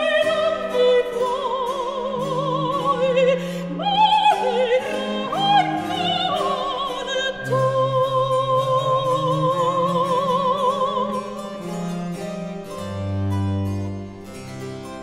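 Background music: a baroque-style Italian opera aria, a soprano singing with wide vibrato over harpsichord accompaniment. She holds a long note before the phrase ends, and the accompaniment closes on a low chord near the end.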